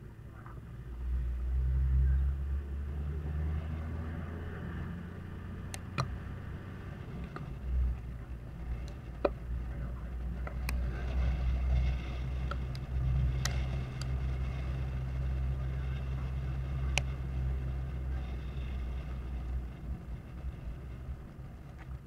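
Diesel engine of a Toyota Land Cruiser HZJ78 troopy running as it drives along a dirt track, a low steady drone. Several sharp clicks come over it.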